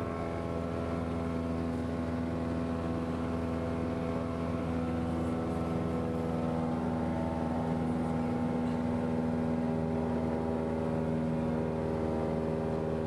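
Steady drone of a Cessna's single piston engine and propeller in flight, heard inside the cabin, growing a little louder about four seconds in.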